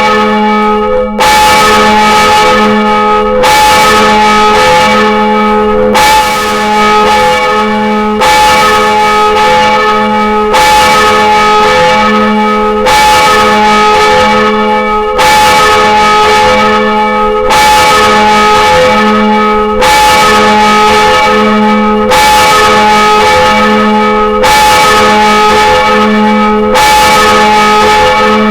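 A single church bell swung full circle and rung freely, its clapper striking about every two seconds, each stroke loud and the bell's hum ringing on between strokes.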